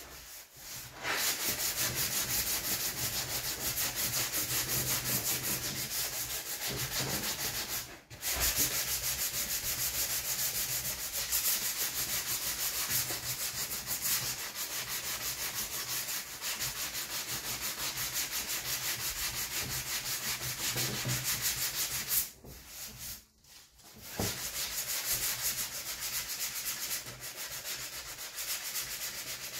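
Hand sanding a repaired plastic motorcycle fairing with sandpaper on a flexible sanding block: steady, quick back-and-forth rubbing strokes. The sanding breaks off briefly about 8 seconds in and again for about two seconds past the 22-second mark.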